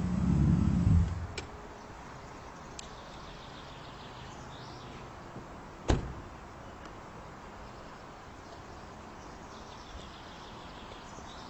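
Mercedes-Benz S600's M120 V12 engine running, which cuts off sharply about a second in. After that, a faint steady hiss with a few light clicks and one sharp knock about halfway through.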